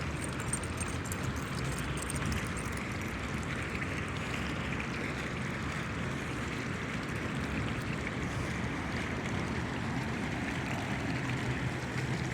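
Steady rushing outdoor background noise, even throughout, with no single event standing out.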